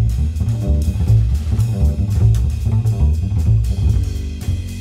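Music with heavy bass and a steady drum beat.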